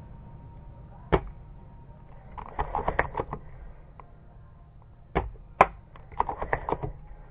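Airsoft gunfire: single sharp cracks and short rapid rattles of clicks, with the loudest crack about five and a half seconds in.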